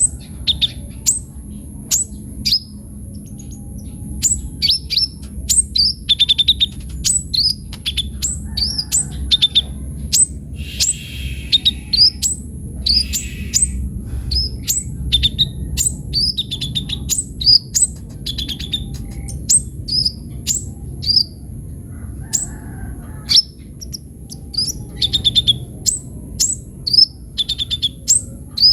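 Copper-throated sunbird (kolibri ninja) singing vigorously: a fast, unbroken run of sharp, high chirps, each sweeping down in pitch, several a second. A thin steady high tone sounds behind it.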